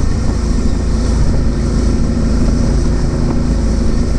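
Suzuki V-Strom DL650 motorcycle riding at speed: steady engine drone mixed with rushing wind on the microphone.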